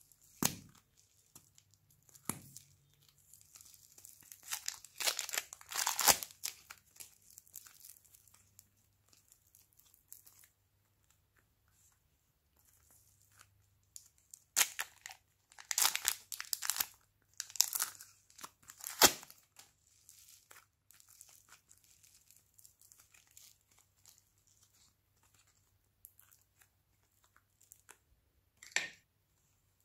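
Thin plastic wrappers crinkling and tearing as soft modelling clay is peeled out of them, in scattered bursts with quiet gaps between.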